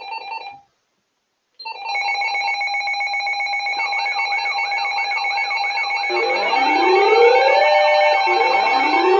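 Loud electronic tones: a steady chord of held tones starts about a second and a half in, warbling chirps join it, and from about six seconds in rising pitch sweeps repeat every couple of seconds.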